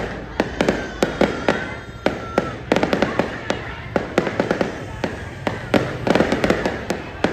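Aerial fireworks bursting: a rapid, irregular run of sharp bangs and crackles, several a second, with a short lull about two seconds in.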